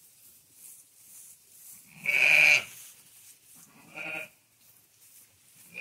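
Katahdin sheep bleating in the pen. There is one loud bleat about two seconds in, a shorter, softer one about four seconds in, and another starting at the very end.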